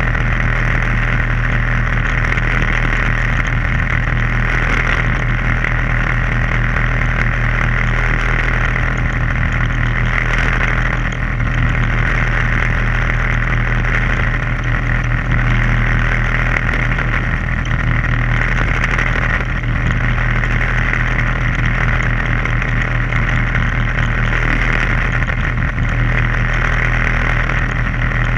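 A boat's engine running steadily: a constant low drone under a steady hiss, unchanging throughout.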